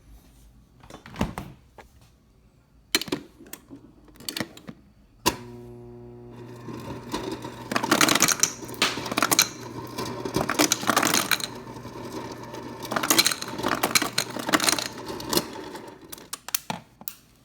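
Refrigerator door ice dispenser: a few clicks, then the dispenser motor starts with a steady hum about five seconds in and runs for about ten seconds while ice clatters and crunches through the chute, then stops.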